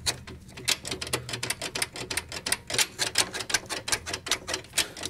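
Socket ratchet clicking rapidly as it is worked on the centre bolt of a Honda ATC200S engine's side cover, about eight uneven clicks a second.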